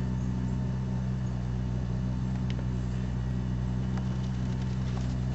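A steady, unchanging low machine hum, with a few faint clicks.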